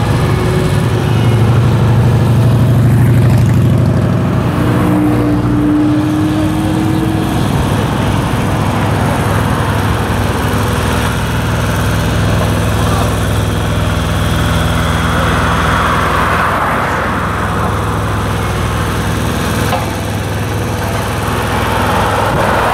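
Diesel engines of a small tandem asphalt roller and a parked dump truck running steadily, with a brief higher whine about five seconds in.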